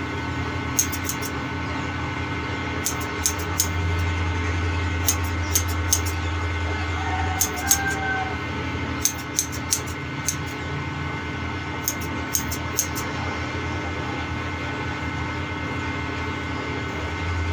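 Barber's scissors snipping hair in short runs of two to four cuts every second or two, stopping about three-quarters of the way through. Under them runs a steady hum.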